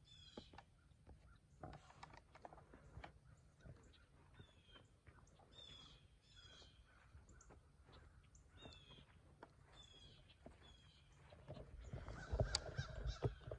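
Wild birds calling: short runs of high notes recurring every second or so. Near the end, louder footsteps and rustling through dry grass.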